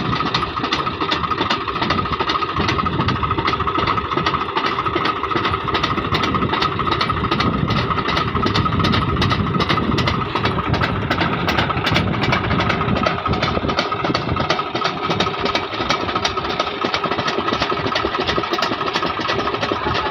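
Swaraj 735 FE tractor's three-cylinder diesel engine running steadily at close range, a dense rapid knock of firing pulses with no change in speed.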